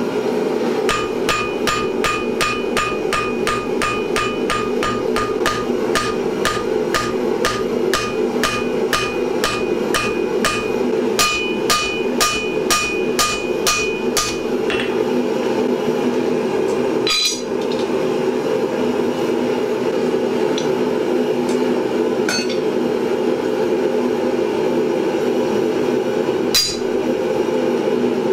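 Hand hammer striking red-hot steel on an anvil, about two blows a second, each with a bright ringing anvil tone. The blows stop about halfway through, after which only a few single strikes come. A steady rushing noise runs underneath.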